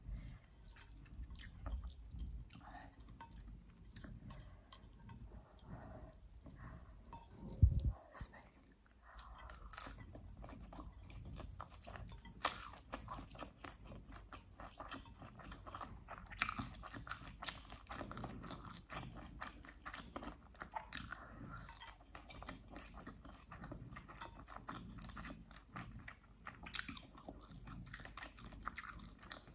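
Close-up chewing and biting of chicken wing and rice scraps eaten with the fingers, a run of wet, crunchy mouth clicks. One loud low thump about eight seconds in.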